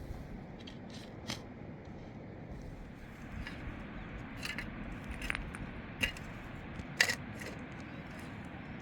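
Scattered light clicks and taps of small hard objects, the sharpest about seven seconds in, over a steady low background noise.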